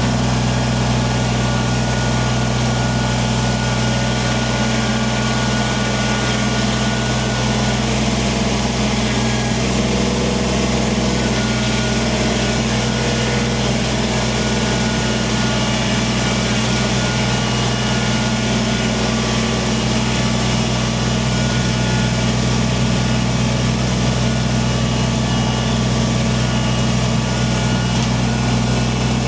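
Kubota compact tractor's diesel engine running steadily at an even speed.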